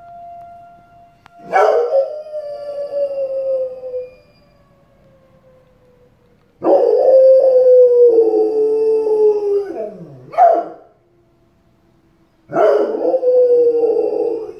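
Dog howling in three long drawn-out howls and one short one, each starting abruptly and sliding down in pitch. It is set off by a tornado warning siren, whose faint steady tone carries on in the gaps between howls.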